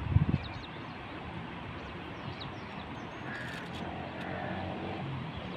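Steady outdoor background noise with a short low thump near the start and a bird calling a few times around the middle.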